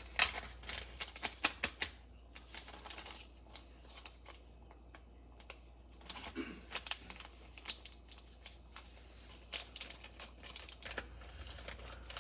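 A small plastic storage container being handled and its lid pressed shut tight: a run of quick clicks and taps, pausing for a few seconds before the clicking picks up again.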